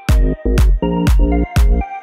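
Background music with a steady beat of about two strikes a second over a repeating bass line.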